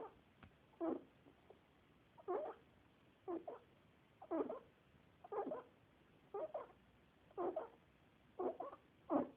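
Pet rabbit making short, odd pitched noises while grooming, about one a second, many coming as quick double sounds.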